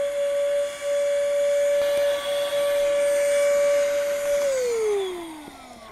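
Handheld electric air pump running steadily, sucking the air out of an inflatable boat's air floor. About four and a half seconds in it is switched off and winds down, its whine falling in pitch and fading.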